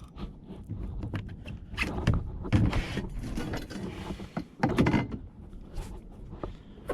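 Irregular mechanical clicking and scratching, with a few louder knocks about two and a half and nearly five seconds in: rattle from an undamped GoPro necklace mount and handling of fishing gear.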